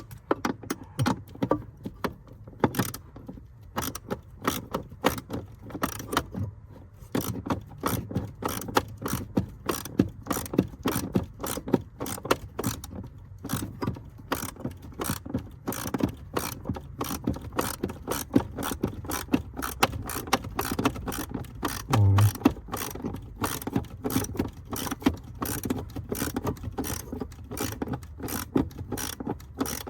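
Socket ratchet clicking in many short, quick strokes as a nut is run down by hand, with one brief low thump about 22 seconds in.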